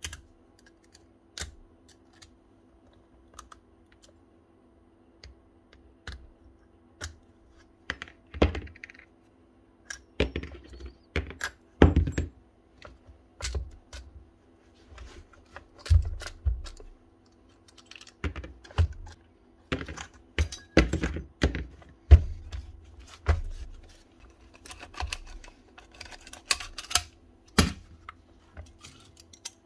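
Metal parts of a rotary hammer's tool holder (springs, washers and sleeve) clicking and clinking as they are worked off by hand and handled on a bench. The clicks and knocks are sparse at first and come thick from about eight seconds in, over a faint steady hum.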